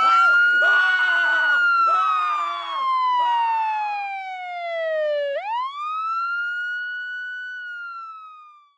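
Emergency-vehicle siren wailing: a long slow fall in pitch, a quick rise again about five seconds in, then a second slow fall fading out near the end. Voices talk under it for the first few seconds.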